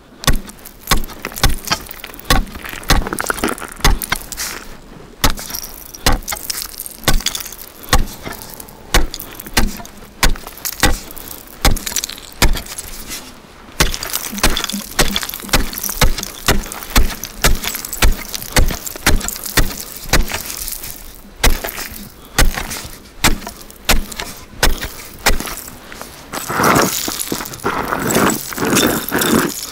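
Steel ice chisel chopping a fishing hole in lake ice: repeated sharp strikes with ice chips crunching and scattering. Near the end the strikes give way to a denser stretch of crunching and scraping.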